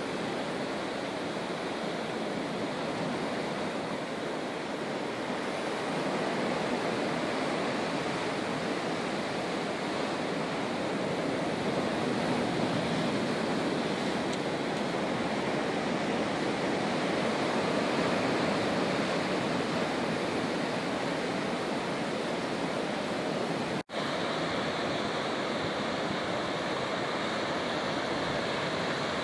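Ocean surf washing and breaking over a rocky shore, a steady rushing; it drops out for an instant near the end.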